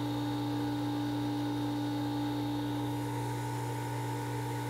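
A flush cart's 1.5 horsepower pump running steadily, circulating water through a geothermal loop to purge the air out. The sound is an even hum with a few steady tones.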